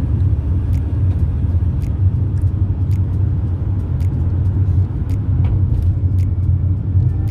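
Steady low road rumble of a moving car, heard from inside, with a faint sharp tick about once a second.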